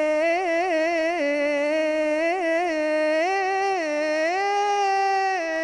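A woman's solo voice singing Egyptian religious inshad (devotional song in praise of the Prophet), one long melismatic phrase of held notes with quick ornamental turns, climbing to higher held notes about three and four seconds in and dropping back near the end.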